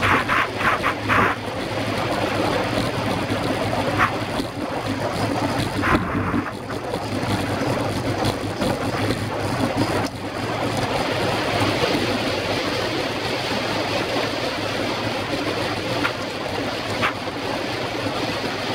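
Wind rushing over the microphone and tyre noise on the wooden boards as a track bicycle rides at sprint speed, a steady rush with a few sharp clicks near the start.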